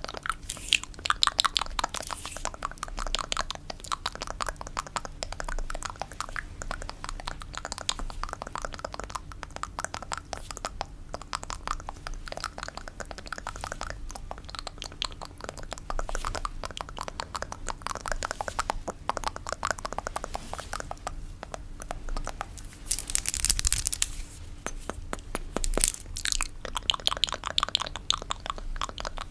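ASMR fingernail tapping, a fast, dense patter of small clicks like rain, with a brief louder scratchy rush about two-thirds of the way through.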